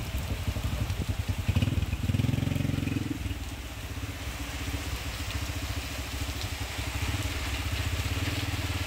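A small engine running with a steady low putter, louder for about a second around two seconds in, under the hiss of heavy rain.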